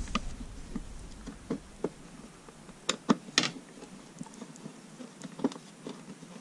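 Hand screwdriver turning a machine screw into the fiberglass through a compass base: scattered light clicks and scrapes, with a few sharper ticks around the middle.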